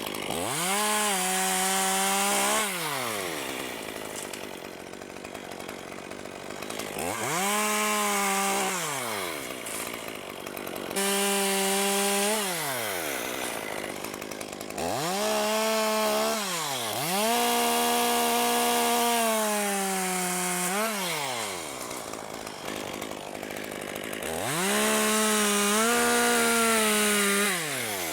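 Chainsaw cutting limbs from a dead ash tree. The engine revs up to full speed about five times, each burst lasting two to four seconds, and drops back to idle in between.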